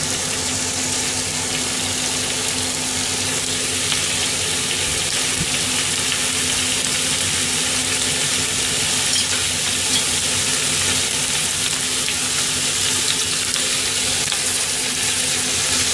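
Thin slices of beef belly sizzling steadily in a hot frying pan as their fat renders out.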